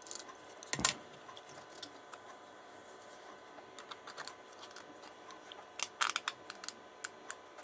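Small clicks, taps and scrapes of hard 3D-printed plastic parts being handled and worked, as the sliding pieces of a fidget toy are freed from the stringy filament sticking them together. A sharper knock about a second in and a short run of clicks near the end.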